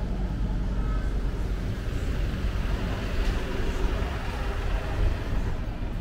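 Steady road traffic on a city street: cars and buses passing as a continuous hum.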